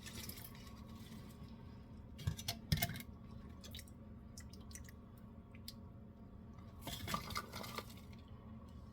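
Thawed blueberries being strained into a bowl: faint dripping of their thawing water, with light clicks and clinks of the strainer and bowl in two short clusters, about two and a half seconds in and about seven seconds in.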